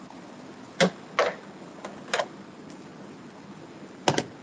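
Sharp hard-plastic clicks and knocks from a Dometic portable camping toilet being put back together: about a second in, again shortly after, a pair around two seconds in, and a quick double click near the end as the top section is pressed down onto the waste tank.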